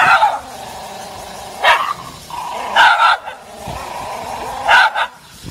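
Shiba Inu-type dog barking, four short sharp barks about one to two seconds apart.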